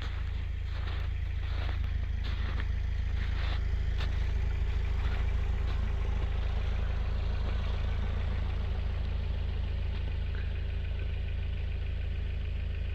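Toyota vehicle's engine running steadily as it drives slowly over rough snowy ground, with a deep low rumble and a few light knocks in the first few seconds.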